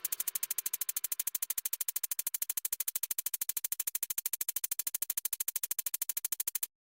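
Rapid, even electronic pulsing at about twelve pulses a second, steady in level, cutting off suddenly near the end.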